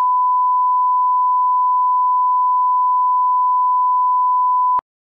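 Broadcast line-up test tone accompanying SMPTE colour bars: a steady, unwavering 1 kHz beep at a constant level that cuts off abruptly with a small click near the end.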